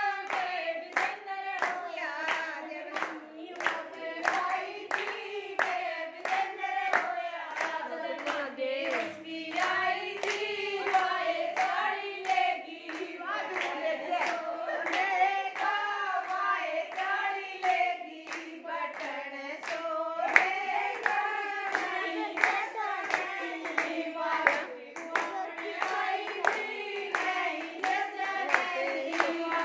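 A group of women singing a Haryanvi jachcha geet, a folk song for a new mother and baby, together in unison, keeping time with steady rhythmic hand claps.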